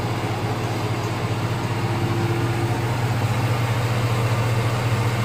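Chevy 5.3 L LS V8 idling steadily and smoothly, just after its first start with a new camshaft and new fuel-flex lifters, running "nice and calm".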